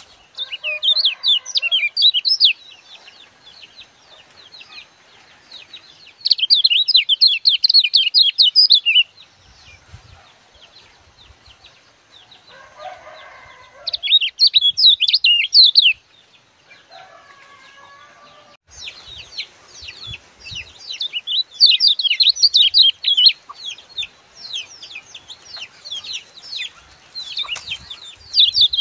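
Caged kecial kuning white-eye singing a fast, chattering song in loud bouts of a few seconds each, the last bout running on for about ten seconds. A few lower calls come between the bouts.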